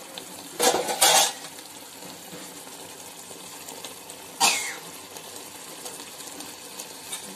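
A person coughs, twice in quick succession about half a second in and once more about four seconds later, over a faint steady hiss from the pot of simmering chicken masala.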